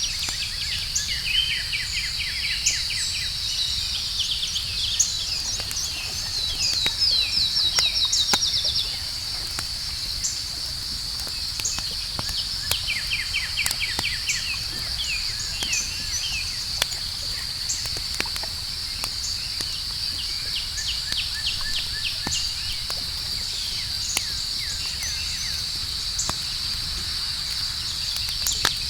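Outdoor campfire crackling, with scattered sharp pops over a low rumble, under a steady high-pitched cricket chorus. Groups of fast chirping trills come and go, loudest from about six to nine seconds in.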